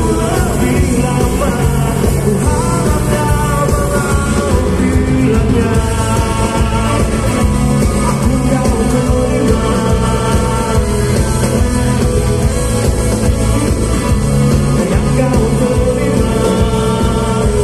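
Live rock band playing at full volume, with electric guitars, drum kit and keyboards over a steady beat, and a male lead singer singing over it.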